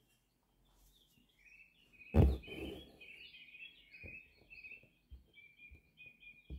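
Small birds chirping in the background. About two seconds in, an embroidery needle and thread rasp as they are drawn through fabric stretched taut in an embroidery hoop, followed by a few faint taps.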